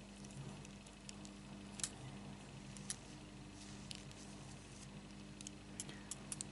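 Faint handling sounds: a few soft, scattered clicks and rubs as fingers work crocheted yarn petals onto a tape-wrapped wire stem, over a steady low hum.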